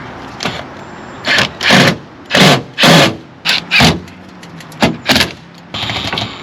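A cordless drill/driver run in short trigger pulls, often two at a time, driving screws to fasten sheet-metal RV body parts together.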